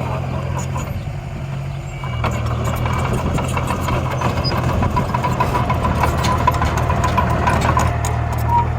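Steady engine running sound from a miniature dump truck or bulldozer, with a low even hum that grows louder about two seconds in. Small scattered clicks and a faint high tone sit over it.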